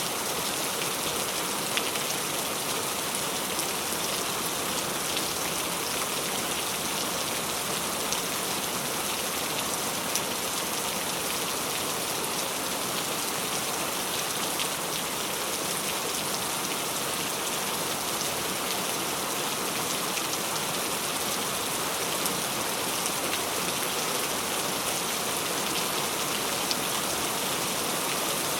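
Heavy rain falling steadily, a dense even hiss with many close drop impacts and now and then a sharper single drop.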